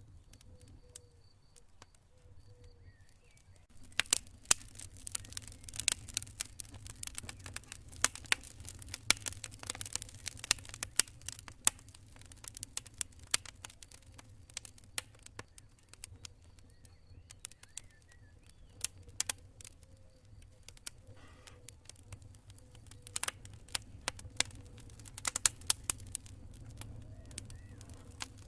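Campfire crackling, with irregular sharp pops and snaps that are sparse at first and come thick and fast from about four seconds in, over a low steady rumble. A cricket chirps faintly in a pulsed trill near the start and again around the middle.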